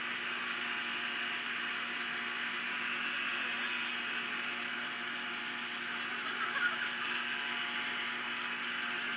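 Steady hiss of outdoor background noise picked up by a nest-cam microphone, with faint constant electrical tones under it. A faint brief sound rises out of it about six and a half seconds in.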